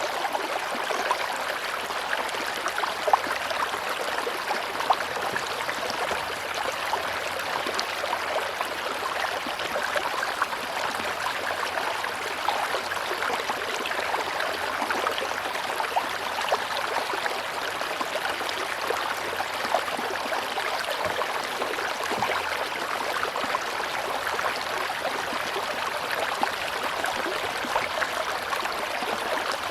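River water rushing steadily, a continuous hiss full of small splashes and gurgles.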